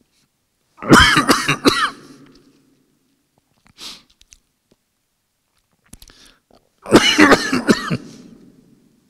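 A man coughing hard into a close microphone in two fits, each of three or four harsh coughs, about a second in and again about seven seconds in, with a short sharp breath between them. His throat is worn out from a long talk.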